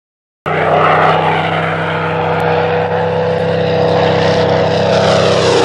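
Float plane's propeller engine running steadily at one pitch, cutting in suddenly about half a second in. Near the end its pitch falls as the plane passes by.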